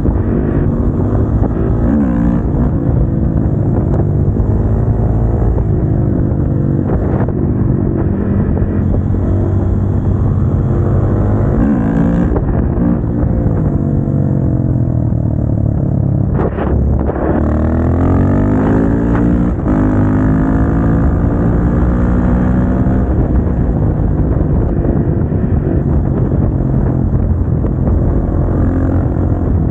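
KTM 690 SMC-R's single-cylinder engine heard onboard on the move, its revs rising and falling as the rider accelerates, shifts and rolls off. About halfway through the revs drop sharply, then climb again.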